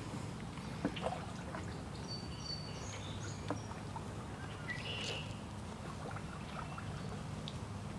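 Canoe paddling: water trickling and pouring off the paddle with each stroke, with a few light knocks. Short, high bird chirps come through in the middle.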